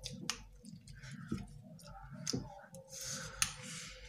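Close-up eating sounds: metal forks clicking and scraping on plates, with noodles being slurped and chewed. A few sharp clicks come roughly a second apart.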